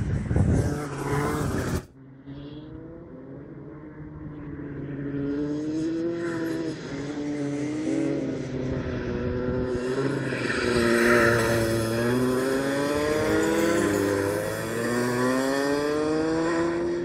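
Rotax 125cc two-stroke kart engines lapping the circuit, their pitch climbing and dropping again and again as the karts accelerate along the straights and back off for corners. In the first two seconds a loud rush of noise covers them and then cuts off sharply.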